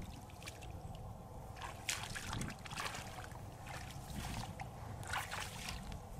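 Bare feet wading through ankle-deep water and wet grass in a flooded rice paddy: irregular splashing, sloshing steps.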